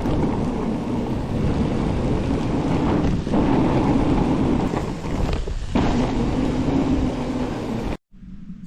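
Wind buffeting the camera microphone: a loud, dense rumble that cuts off abruptly near the end.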